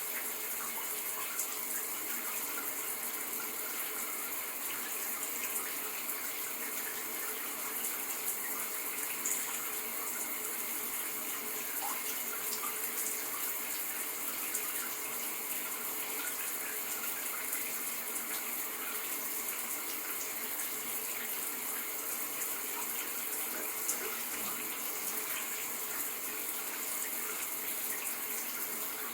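Shower running: water spraying steadily onto a hard surface, an even hiss.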